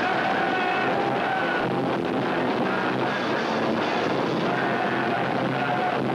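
Rock band playing live at a steady, loud level: electric guitar, bass and drums with a few held vocal or guitar notes, in a rough home-video recording made from the room.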